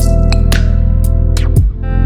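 Background music: guitar-led track with a strong bass and a steady beat.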